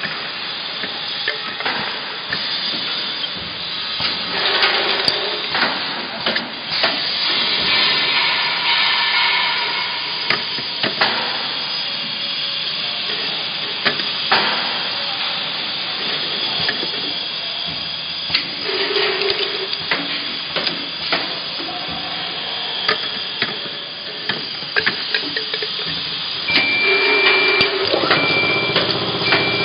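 Automatic plastic-bottle neck-trimming and deflashing machine running: a steady air hiss with frequent clicks and knocks from its pneumatic cutting station. Near the end a high electronic beep starts repeating.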